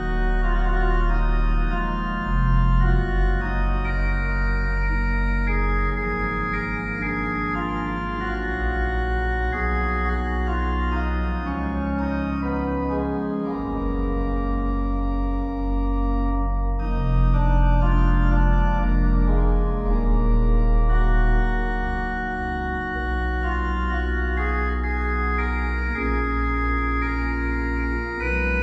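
Organ music: slow, sustained chords that change every second or two over deep, held bass notes.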